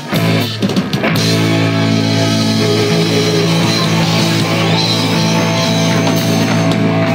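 Rock band playing loud, with electric guitar: a few short hits in the first second, then a long held chord.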